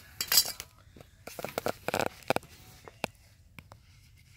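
Light metallic clinks and clatter of copper pipe and fittings being handled: a quick cluster right at the start, a longer run around the second second, then a few single clicks.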